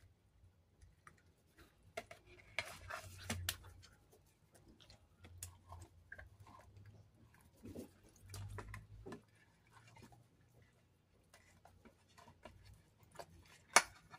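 Faint sounds of seasoning raw tilapia on a plate: ground black pepper shaken from a shaker bottle and wet handling of the fish. Scattered small clicks and taps run throughout, with one sharper click near the end, over a faint low hum.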